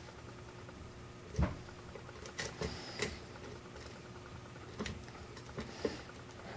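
Faint clicks and taps of a hook pick and tension wrench working the pin stack of a Schlage Everest pin-tumbler cylinder during single-pin picking: a handful of scattered small clicks, the sharpest about a second and a half in.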